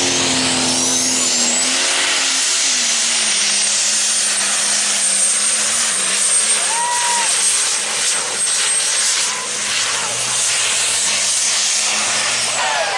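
Super stock diesel pulling tractor running flat out under load while hauling the sled. A high turbocharger whistle climbs steeply in the first two seconds, holds steady, and falls away near the end over loud, dense engine noise.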